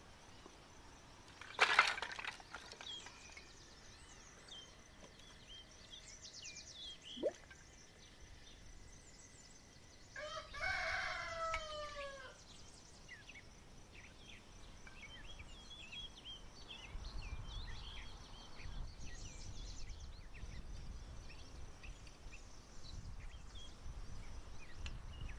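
A rooster crows once, about ten seconds in, over scattered small-bird chirps. A sharp knock a couple of seconds in is the loudest sound, and a low rumble comes in during the second half.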